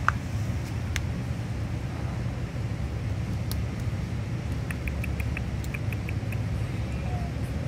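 Blue-and-gold macaw gnawing on a wooden log: sharp clicks of its beak on the wood, with a quick run of short crackling clicks about two-thirds of the way in, over a steady low rumble.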